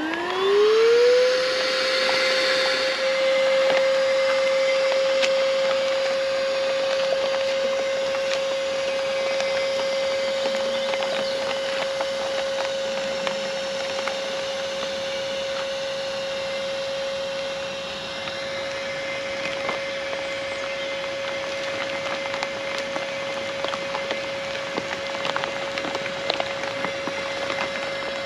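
Oak&Iron Wave portable electric inflator starting up to inflate a kitesurfing kite: its motor whine rises quickly in pitch within about the first second, then runs as a steady high hum over rushing air. Scattered crackles and ticks sound throughout.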